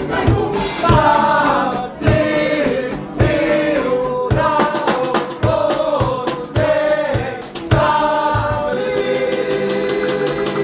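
Band members singing a chorus together over a steady low beat. Near the end the singing gives way to saxophones playing long held notes.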